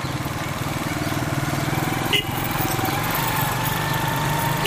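Motorcycle engine running steadily at low speed while riding slowly through traffic, with a brief click about two seconds in.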